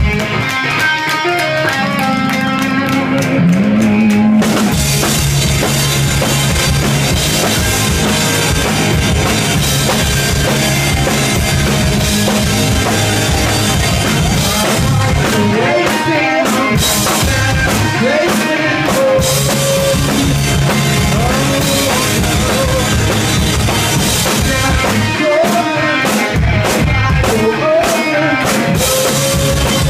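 Live rock band playing: guitar alone at first, then the drum kit comes in about four seconds in and the full band plays on.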